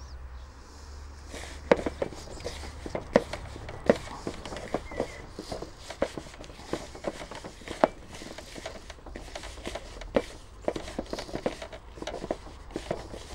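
Hands kneading crumbly shortcrust dough in a plastic mixing bowl, with irregular soft knocks and taps as fingers bump the bowl.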